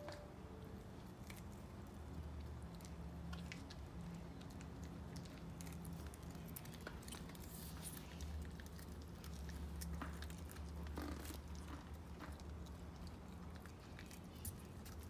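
A Parson Russell Terrier puppy chewing and biting a raw Brussels sprout, scattered small crunches and clicks, over a faint steady low hum.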